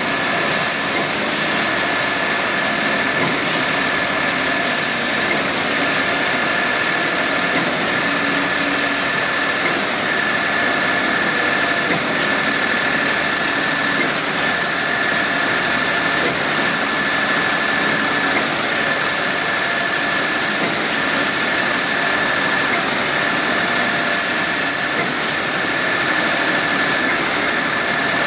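Heavy diesel machinery at a mass concrete pour, likely concrete pumps and truck mixers, running in a steady, unbroken din. A faint high tone comes and goes every second or two over it.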